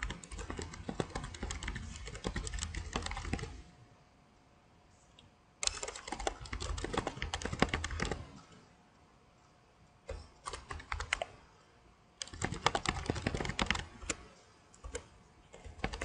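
Typing on a computer keyboard: runs of rapid keystrokes, four in all, separated by short pauses.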